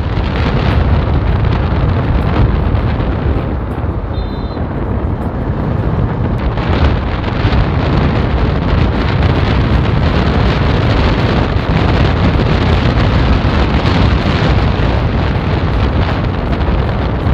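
Royal Enfield Bullet single-cylinder motorcycle engine running hard at speed, with heavy wind noise buffeting the microphone.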